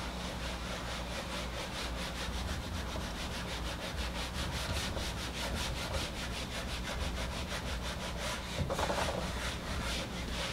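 An eraser wiping a marker-covered whiteboard in quick, even back-and-forth strokes, several a second.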